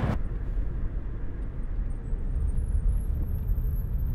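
A steady low rumble, with faint high-pitched chirps from about two seconds in.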